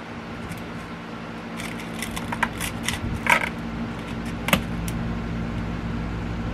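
Hand pruning shears cutting through a thick sunflower stalk at its base: a run of clicks and crunching snips, the loudest about three and four and a half seconds in, over a steady low background rumble.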